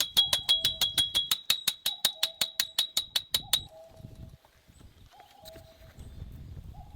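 Birds calling outdoors: a repeated two-note call, a short higher note and then a longer lower one, comes about every second and a half. For the first half there is also a fast run of sharp ticking notes, about six a second, which stops about three and a half seconds in.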